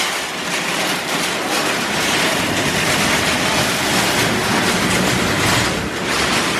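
Empty wire shopping trolley rattling as it is pushed over a grated entrance floor mat, its wheels and metal basket clattering continuously.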